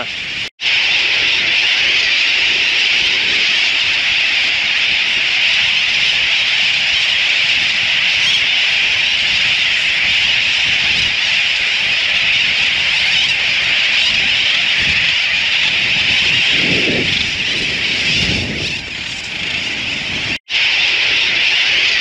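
Dense, steady din of a large seabird colony, with thousands of birds calling at once.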